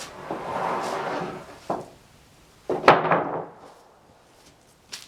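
Sawn wooden boards being handled: a board scrapes and slides, then there is a knock, and about three seconds in comes one loud wooden clatter as a board is dropped onto others, followed by a few faint knocks.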